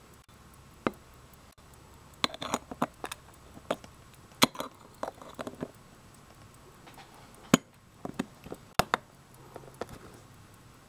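Irregular metal clicks and clinks of an Elgin pocket watch being handled, its hinged crystal bezel swung open, with a few sharp louder snaps among them.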